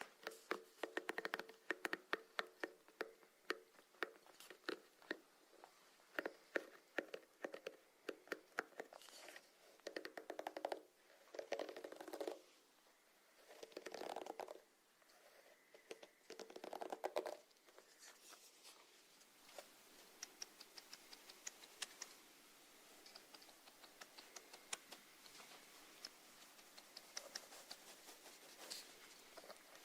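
Close-miked snails making many small, crisp clicks and scratches, with a few longer rasping scrapes in the first half and sparser, lighter clicks later.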